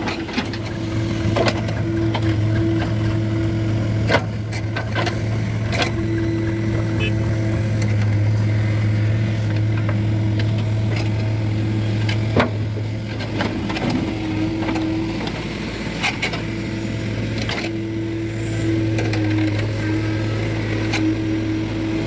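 JCB 3DX backhoe loader's diesel engine running steadily under load as the backhoe digs and swings. The engine note eases for a few seconds midway, then picks up again. A few sharp metallic knocks from the bucket and arm break through, the loudest about four and twelve seconds in.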